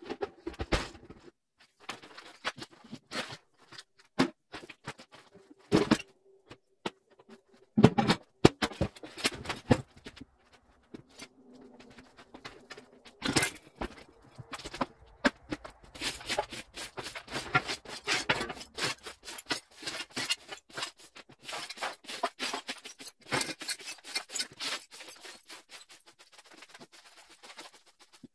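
Irregular scraping, rustling and knocking of hand clean-out work on debris, with a few louder knocks in the first half.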